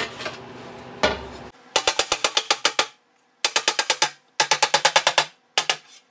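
A single low knock about a second in, then a body hammer tapping rapidly on a sheet-steel panel backed by a dolly. The taps come in bursts of about ten light strikes a second with short pauses between, working out a crease left by bead rolling the wrong way.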